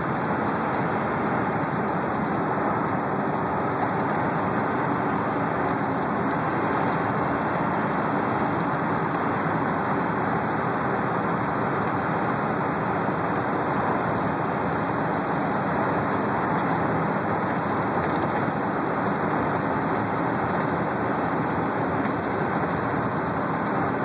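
Steady engine and road noise inside the cabin of a moving transit bus.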